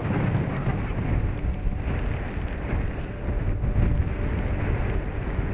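Wind blowing across the microphone: a steady, low, dense rush.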